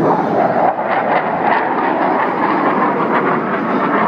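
Loud jet engine noise from an F-18 flying past, a steady rushing roar with no break.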